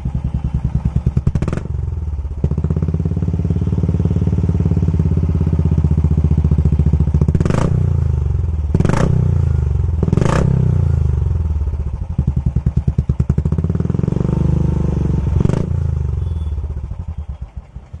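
Royal Enfield Classic 350 BS6's single-cylinder engine revved through a 'Launcher' aftermarket silencer: several blips of the throttle with the revs sliding back down between them. About five sharp cracks come from the exhaust, a cannon-shot sound, three of them close together in the middle. Near the end it settles back to a quieter idle.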